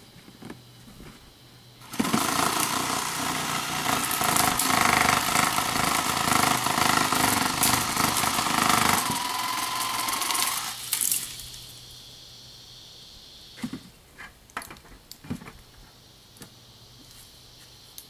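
Power saw cutting through a tree limb: it starts abruptly, cuts steadily for about nine seconds, then winds down and stops. A few sharp knocks follow.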